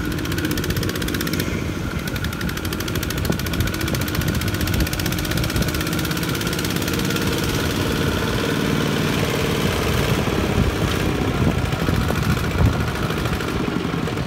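Single-cylinder diesel engines of two-wheel walking tractors running steadily with a fast, even pulse while hauling trailers, louder in the second half as one passes close by.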